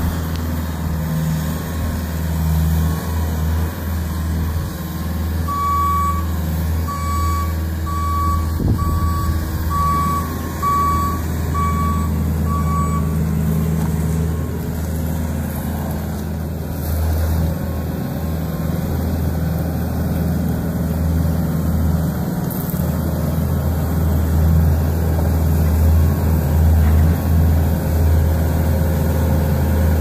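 Bobcat skid steer's diesel engine running steadily as it moves hay bales. Partway through, its back-up alarm beeps steadily, about once a second, for several seconds.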